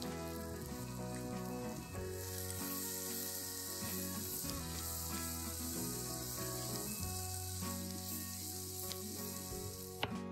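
Sliced mushrooms, carrot and onion sizzling as they fry in oil in a nonstick pan, stirred with a spatula; the sizzle grows louder about two seconds in. Near the end it stops and a knife knocks once on a wooden cutting board. Background music plays underneath.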